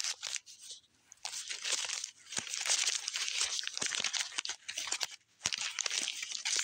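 Plastic candy wrappers crinkling and crackling as a handful of Cow Tales packages is handled, in a near-continuous run with short breaks about a second in and again near the end.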